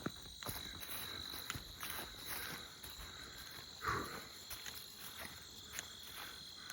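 Steady chorus of crickets and other insects, a continuous high trill, with a few soft footstep clicks along the trail. One louder brief sound comes about four seconds in.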